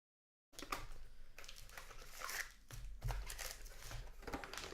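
Sound cuts in abruptly after half a second of silence, then a trading-card pack's foil wrapper crinkles and tears as the pack is opened, with a low hum underneath.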